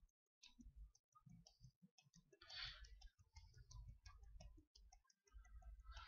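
Near silence: faint room tone with a few faint scattered clicks.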